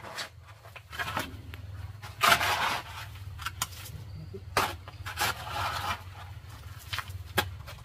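A steel shovel scraping and scooping through a dry mix of gravel, sand and cement, turning it by hand for concrete. The strokes are uneven and come about a second apart, the loudest about two seconds in.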